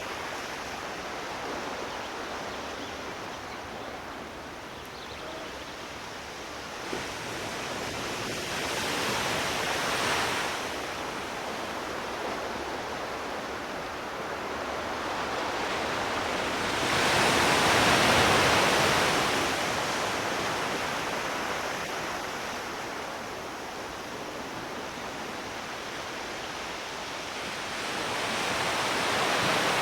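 Sea waves washing onto the shore: a steady hiss of surf that swells into a louder wash three times, about every eight to ten seconds, the biggest about two-thirds of the way through.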